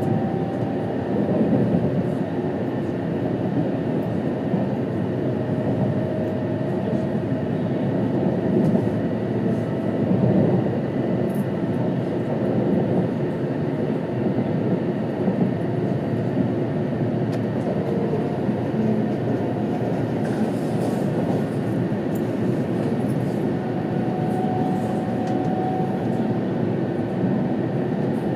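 Steady running noise inside the passenger cabin of a JR East E2-series Shinkansen travelling on its line: a continuous rumble of wheels, rails and air, with a faint hum coming and going on top.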